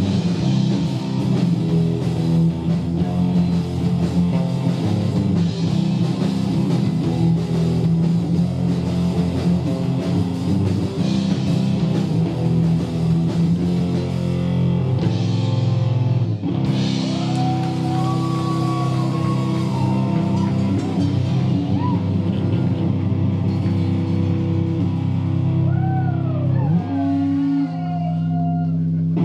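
Live rock band playing an instrumental passage on electric guitar, bass guitar and drum kit. From about halfway, a lead guitar line with bent, gliding notes rises above the band.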